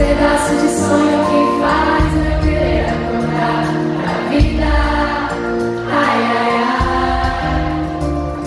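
Live pop song played on stage, with bass, guitar and several voices singing together, heard from the audience in a concert hall.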